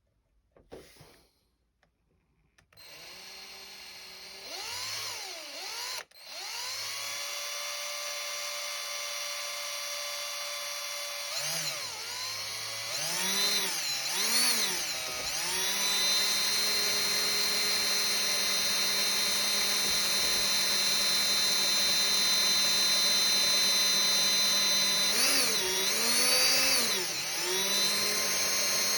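Small handheld electric micro drill boring a pilot hole through a plastic model part. The motor starts about three seconds in, cuts out briefly near six seconds, then runs on as a steady whine whose pitch dips and recovers a few times as the speed changes under load.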